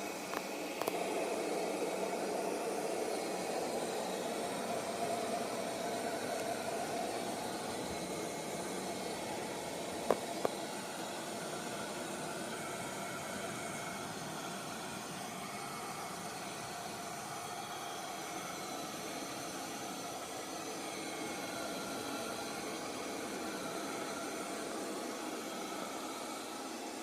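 Light 'N' Easy robot vacuum running with a steady whir and hiss, with two sharp clicks about ten seconds in.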